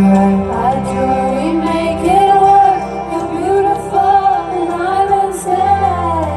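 Live band music with a wordless female vocal line rising and falling in repeated arcs over steady held low notes.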